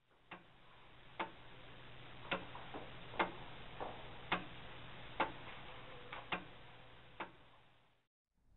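Mechanical clock ticking about once a second, its beats slightly uneven, over a low steady hum. It fades in and out.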